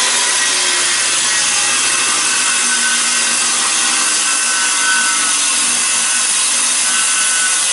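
Corded handheld circular saw ripping a long straight cut through a sheet of subfloor board along a straightedge guide, running steadily under load.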